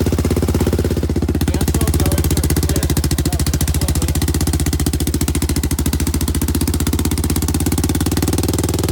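Honda TRX400EX quad's freshly rebuilt single-cylinder four-stroke engine running steadily with a rapid, even firing beat, on its first runs after the rebuild.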